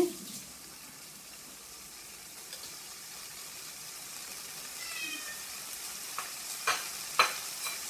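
Masala sizzling in a non-stick pan over a low-to-medium gas flame, a steady hiss that slowly grows louder. A few sharp knocks near the end, the loudest sounds, from the wooden spatula against the pan.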